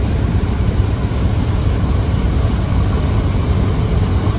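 Steady low drone of large river passenger launches' diesel engines running at speed, over the rushing of wake water and wind.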